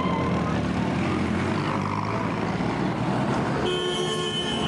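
Busy street traffic with motor vehicle engines running, and a vehicle horn honking once for about a second near the end.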